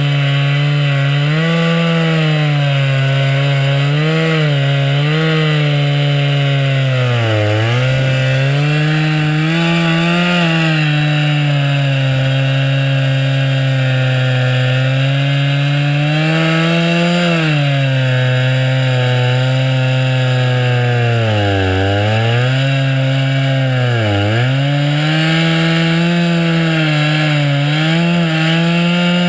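Chainsaw running at high revs while ripping a blue spruce log lengthwise into a slab. Its pitch sags several times under load and picks back up.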